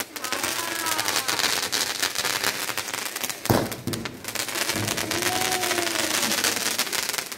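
Firework fountain spraying sparks with a steady hissing crackle, and a sharp firecracker-like bang about three and a half seconds in. The hiss stops at the very end.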